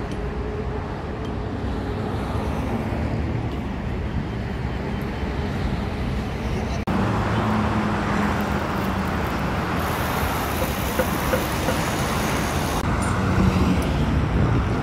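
Steady road traffic noise from a busy multi-lane highway below: cars and buses passing. The level steps up suddenly about seven seconds in.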